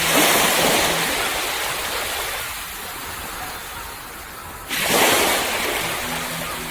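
Ocean waves breaking on the shore twice, about five seconds apart, each crash fading into a long wash.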